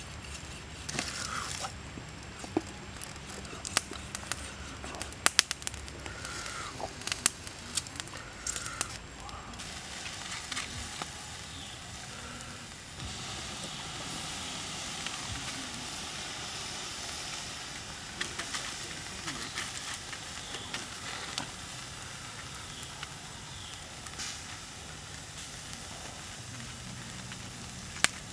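Pork leg roasting over charcoal embers: sharp crackles and pops in the first third, then from about halfway a steady sizzle as sauce is basted onto the hot meat.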